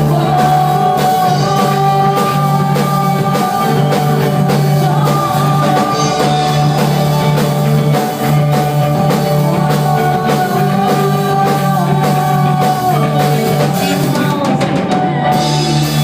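Rock band playing: drum kit keeping a steady beat under electric guitar and bass, with held melodic lines over the top.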